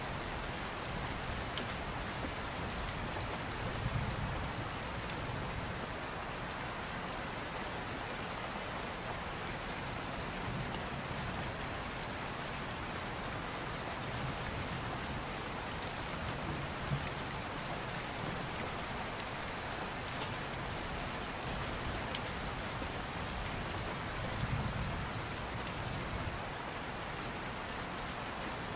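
Steady rain hiss with scattered faint drop ticks, and a few soft low rumbles at intervals.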